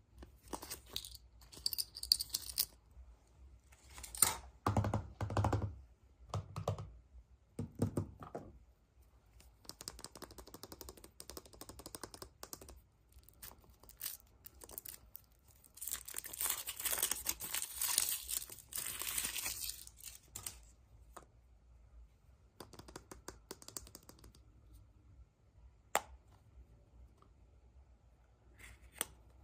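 Hands tearing and crinkling packaging during an unboxing, in irregular bursts of crackle and clicks, with a longer stretch of steady tearing past the middle. A few dull knocks are heard in the first third.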